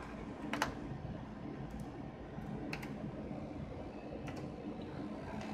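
About four isolated clicks, like keys or buttons on a computer, a second or so apart, over a steady low electrical hum.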